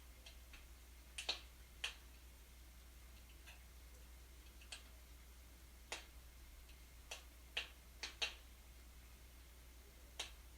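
Wood fire burning in a fireplace, crackling with sparse, irregular sharp pops, a few seconds apart and sometimes in quick pairs, over a faint low hum.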